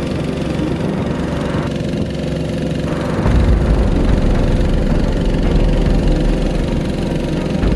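Boat engine running steadily; a louder low rumble comes in about three seconds in.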